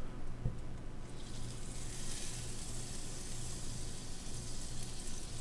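Butter sizzling in a hot frying pan. The hiss swells up about a second in and then holds steady, hot enough to sizzle the butter but not scorch it.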